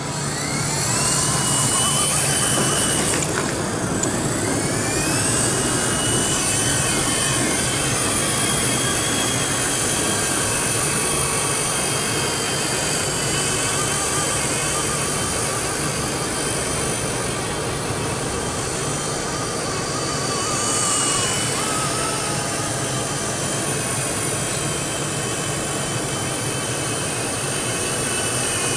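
Blade mCPX micro collective-pitch RC helicopter's electric motors and rotor spooling up with a rising whine over the first couple of seconds. The whine dips briefly, rises again, then settles into a steady high whine in flight, its pitch wavering now and then. The tail is wobbly in flight, which the pilot puts down to the gyro sensitivity setting.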